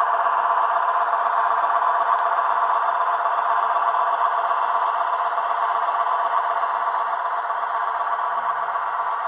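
Onboard sound decoder of an HO-scale Roco model of the SBB Beilhack diesel snow blower playing its diesel engine sound through the model's small speaker: a steady, unchanging hum with a tinny, mid-pitched tone.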